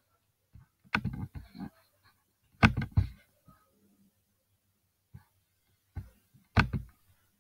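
Handling noise near the microphone: a few clusters of sharp knocks and clicks with dull thuds, the loudest about three seconds in.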